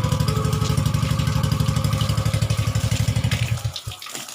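Yamaha X-Ride 125 scooter's single-cylinder engine idling with an even pulse, then switched off and cutting out sharply a little over three seconds in. A short horn tone sounds in the first second.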